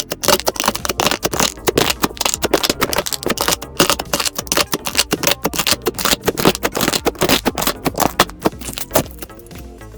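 Slime being squeezed and pressed by hand, a dense, rapid run of crackling clicks and pops that eases off a little near the end.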